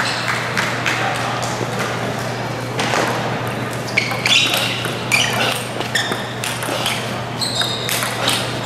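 Table tennis ball clicking off rackets and bouncing on the table in a rally, over the murmur of spectators in a large hall.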